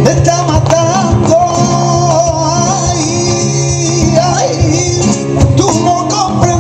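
Live flamenco bulerías: a man sings a long, wavering, ornamented line over two acoustic guitars strumming fast, sharp chords.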